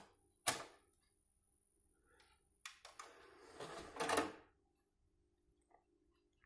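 Cyrus CD 6s CD player: a sharp click as the disc is set in its drawer. A couple of seconds later the drawer mechanism runs for about a second and a half, ending in a clunk as it shuts.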